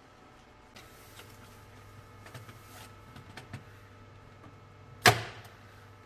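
Low steady hum with a brief hiss and a few light clicks, then one loud, sharp knock about five seconds in that rings briefly.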